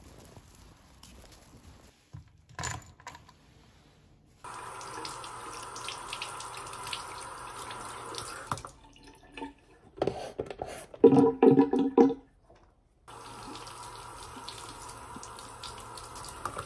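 Water running from a bathroom washbasin faucet over hands being washed, starting about four seconds in, stopping for a few seconds in the middle, then running again. Between the two runs comes a cluster of short, loud, pitched sounds, the loudest thing here.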